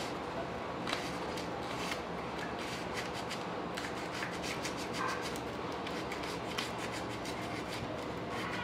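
Sandpaper rubbing over a bicycle brake pad, a steady scraping with scattered light ticks, to take the glaze off a pad that makes the front brake squeal.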